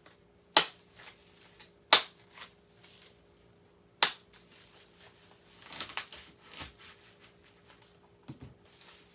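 Sharp snaps and crackles from an ear of corn being handled as its husk is pulled back, a few single loud snaps with a looser cluster of smaller ones in the middle.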